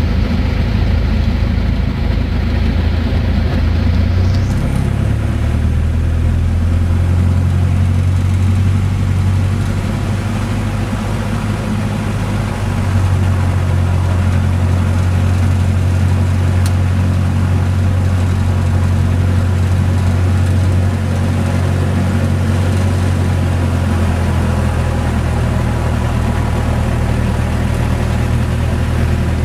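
Single-engine light aircraft's piston engine and propeller running steadily at low power, heard from inside the cockpit. The engine note shifts up or down in steps a few times as the throttle is moved while the aircraft rolls along the runway and taxis.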